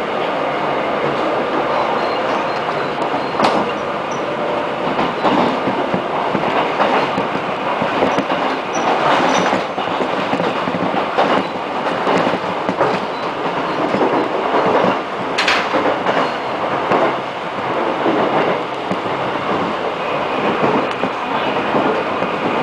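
Ride noise of a Korail 311000-series (5000-series) electric multiple-unit train heard from inside the car: a steady rumble of wheels rolling on the rails, with clickety-clack over the track and a couple of sharp clicks.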